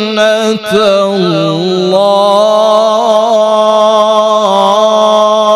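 A man reciting the Quran in the melodic murattal-mujawwad style through a microphone, with a quick breath about half a second in, then one long held note with slight ornament from about two seconds in.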